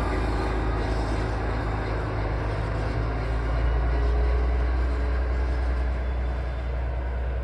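Diesel shunting locomotive's engine running as it moves away, a steady low drone that swells slightly midway and then begins to fade.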